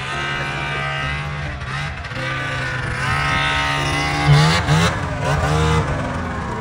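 Snowmobile engine running, its pitch rising and falling several times as the throttle is opened and eased.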